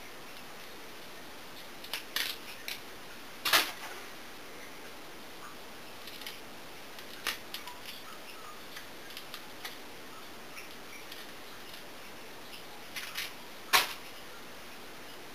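Sharp, irregular snaps and clicks as fibrous thistle roots are peeled and trimmed by hand, strips pulled off the crisp root. The two loudest come about three and a half seconds in and near the end, with smaller ticks between.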